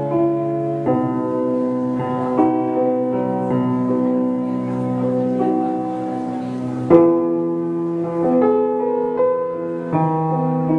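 Slow piano music: sustained chords changing every second or so, with a firmer chord struck about seven seconds in.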